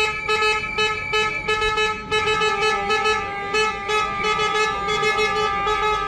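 Several horns blaring together: some held as steady tones while others sound in short repeated blasts about three a second. The quick blasts stop near the end, leaving one steady horn.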